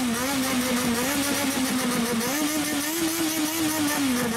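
Honda CBX550F's air-cooled inline-four on straight pipes, held at a raised rev with small throttle wobbles. The revs step up about two seconds in and ease back down near the end.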